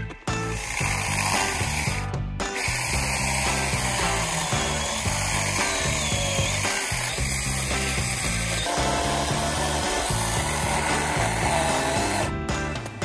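Small cordless electric mini chainsaw running and cutting into tree stump roots in the soil, over background music. The saw stops briefly about two seconds in and again near the end.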